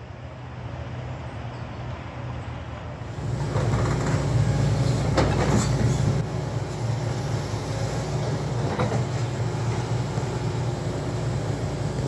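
Diesel engines of construction plant, a tracked excavator and a dumper, running steadily with a low hum. It gets louder about three seconds in, and a few sharp knocks sound through the middle.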